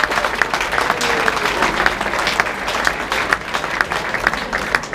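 A crowd applauding, many hands clapping at once, dense and steady.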